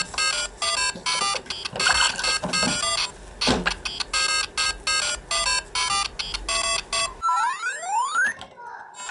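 Electronic beeps and jingles from the LEGO Super Mario interactive figure's speaker: a fast run of short, repeated beeping notes, then a few quick rising and falling pitch sweeps near the end.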